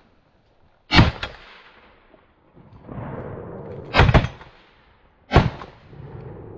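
Three loud 12-gauge shotgun shots, the first about a second in and the last two about a second and a half apart; the middle one has a second report close behind it.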